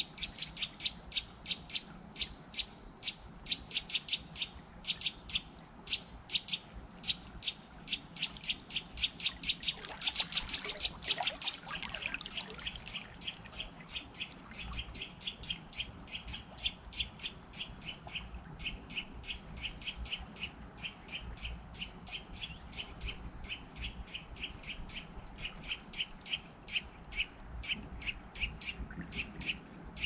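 Small birds chirping over and over, several short high chirps a second, above the faint low rush of a flowing river. About ten seconds in, a louder, denser burst of sound joins for a couple of seconds.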